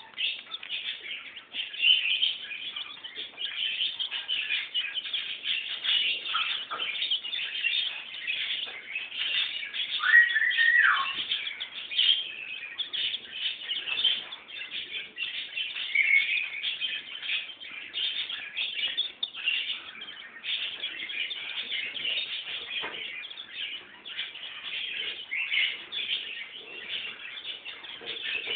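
A brood of young chicks peeping continuously, many short high calls overlapping; one longer, louder call stands out about ten seconds in.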